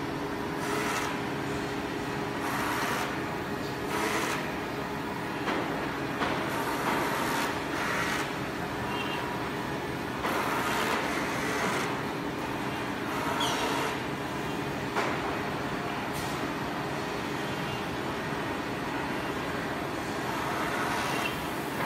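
Woodmaster 2.5D CNC machining centre running, with a steady hum of motors and pump. Short rushing bursts come every second or two as it machines a wooden table top.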